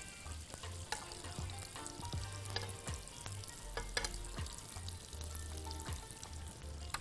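A cube of butter sizzling as it melts in hot oil in a wok, with a spoon scraping and tapping against the pan as it pushes the butter around.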